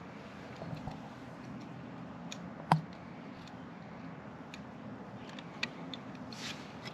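Scattered light metallic ticks and clicks of pliers and small hardware being handled while fitting floorboard hinge pins and cotter pins, with one sharp click a little under three seconds in.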